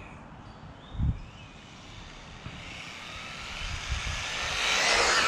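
Electric RC truck running at speed: its motor whine and tyre rush grow louder and peak near the end as it passes close. There is a low thump about a second in.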